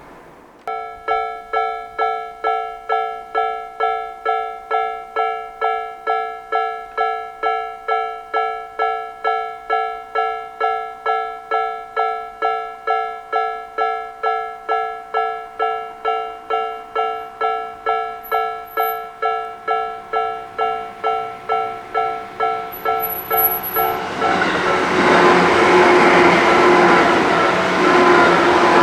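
Japanese railway level-crossing alarm: two electronic crossing bells of different timbre, a Nikko-type and a 'pon-pon' Tojo-type, ringing together exactly in step, just under two strikes a second, each strike decaying. In the last five seconds a train passes over the crossing, its rushing wheel noise growing loud over the bells.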